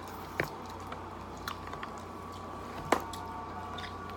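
Close-up eating of lobster: chewing, with sharp clicks of shell as the lobster is picked apart by hand, one about half a second in and a louder one near three seconds. A steady low hum runs underneath.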